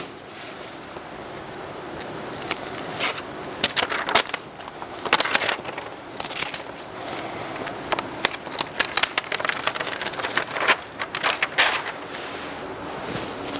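Strip of self-adhesive membrane being handled and its release backing peeled off: irregular crackling and rustling of the stiff film and backing.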